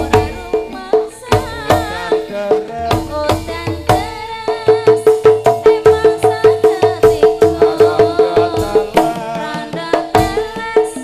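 Live Javanese gamelan dance music: kendang hand-drum strokes over tuned metal percussion. In the middle, one ringing note is struck quickly and evenly, about five times a second.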